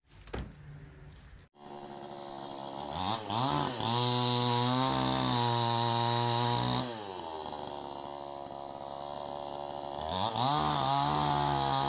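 Gasoline chainsaw cutting through branches: the engine revs up to full speed with a rising whine, drops back to a lower speed about halfway through, then revs up again for another cut near the end.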